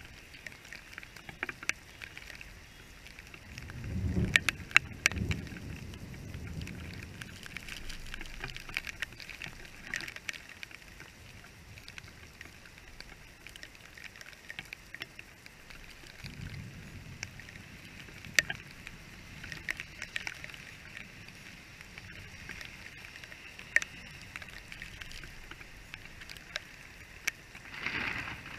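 Steady rain falling on a wet street, with scattered sharp ticks of raindrops striking the camera housing. A low rumble swells about four seconds in, and a fainter one comes around sixteen seconds in.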